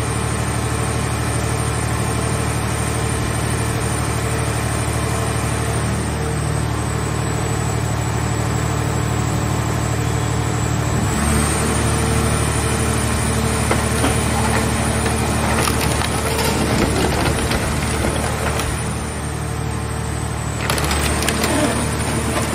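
Hydraulic car-body baler running with a steady drone from its hydraulic power pack. About halfway through the drone changes pitch under load, and irregular crunching and cracking follow as the car shell's sheet metal is crushed in the press box, with another burst of cracking near the end.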